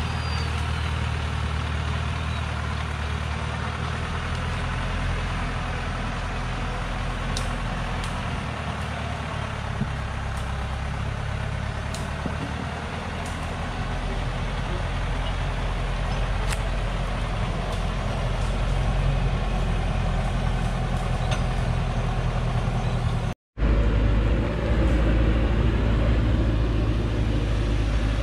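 Engine of a Hoa Mai log truck loaded with acacia wood, running steadily as it crawls down a steep dirt hill track. The sound drops out for a moment about 23 seconds in, then comes back a little louder and lower.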